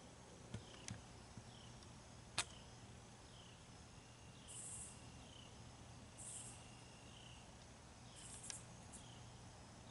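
Near silence outdoors: faint short chirps repeating about once a second, a few brief high buzzes, and a few sharp clicks, the loudest about two and a half seconds in.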